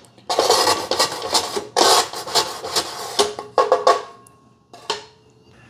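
Plastic scraper tool rasping across the ridged nonstick grill plate of a Cuisinart Griddler, scraping off cooked-on hamburger residue in a run of strokes. The strokes stop about four seconds in, with one more short scrape near five seconds.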